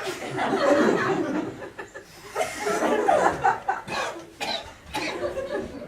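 A man coughing and spluttering with breathy mouth noises, while the audience chuckles.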